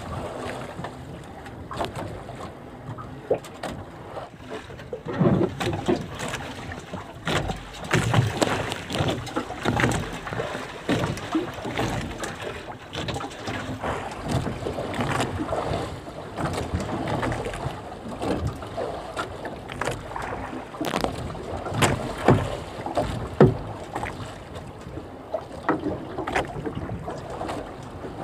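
Water sloshing against a small fishing boat, with irregular knocks and clatter on the hull.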